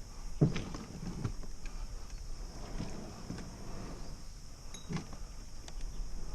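Scattered knocks and thumps against a small boat's hull, a second or two apart, over a steady high hiss.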